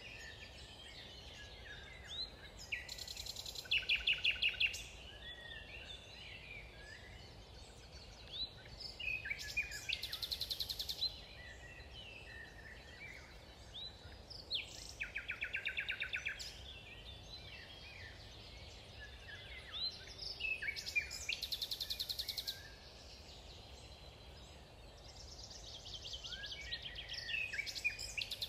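Songbirds singing in a woodland, several birds at once: chirps and short phrases, with loud rapid trills about a second long coming back every few seconds, over a faint low rumble.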